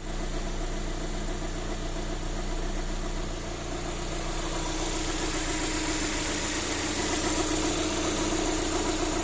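VAZ-2112 engine idling steadily after a major overhaul, its hydraulic lifters no longer knocking. The fault had been in the oil pickup.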